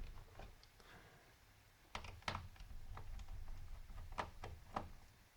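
Faint clicks and taps of a screwdriver and small screws on a laptop's plastic case during disassembly, a few sharper clicks coming between about two and five seconds in.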